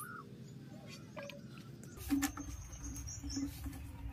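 Birds chirping faintly over quiet outdoor background, with a few light clicks about two seconds in.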